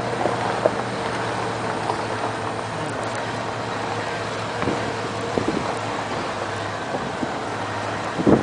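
A 4x4 truck's engine running steadily, a constant hum under rumbling wind and road noise, with a few light knocks.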